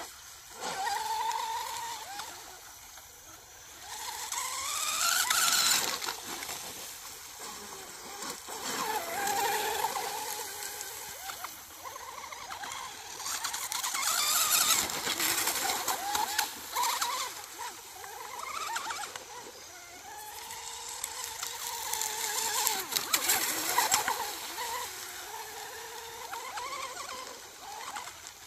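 Brushless RC outrigger boat with a TP Power motor making repeated high-speed passes: a high motor whine that rises and falls in pitch with the throttle, swelling as the boat comes by and fading as it runs away, several times over.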